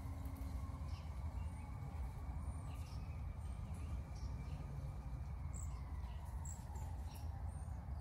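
Small songbirds giving short, high-pitched chirps and squeaks, scattered throughout, over a steady low rumble.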